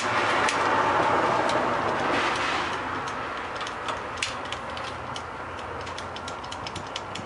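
An igniter clicking several times a second, uneven and sharp, from about three seconds in, being worked to light the gas burner of the truck's coffee and hot-water unit. A steady rushing hiss comes before it and fades under the clicks.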